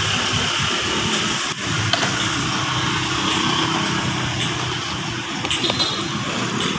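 Steady city street traffic: cars and motorcycles running and passing close by at an intersection.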